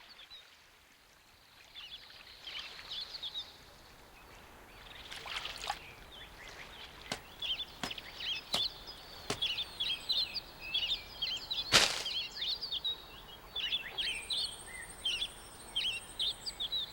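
Birds chirping: many short, quick calls that thicken after the first few seconds, with a few sharp clicks among them. A high, steady trill comes in near the end.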